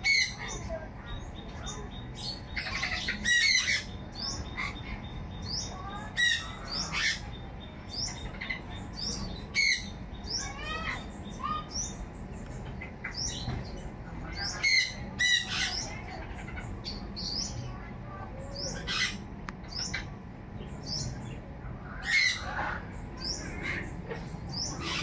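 Birds calling: a steady run of short rising chirps, with loud harsh squawks every few seconds.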